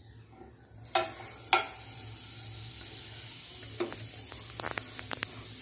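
Butter sizzling as it melts in a hot non-stick frying pan: a steady hiss starts about a second in, after two sharp knocks of the wooden spoon as the butter goes in, with scattered small pops and crackles later on.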